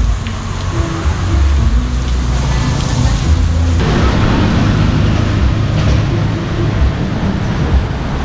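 Steady hiss of rain falling on a wet street, coming in about four seconds in. Underneath, a low bass line of background music runs throughout.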